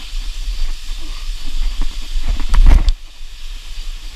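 Wind rumble and hiss on a body-worn action camera's microphone during a scramble through bushes on a rocky cliff, with rustling and scraping as hands grab branches. A louder surge of rumble and scraping comes about two and a half seconds in, then cuts off suddenly.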